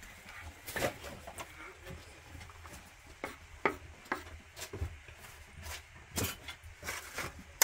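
A run of irregular knocks and clacks, a few to the second, uneven in spacing and strength, with the sharpest and loudest one right at the end.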